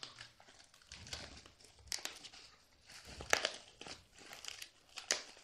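Clear plastic wrapping crinkling and crackling as it is pulled off a cardboard parcel, in irregular bursts, the loudest a little after the middle and again near the end.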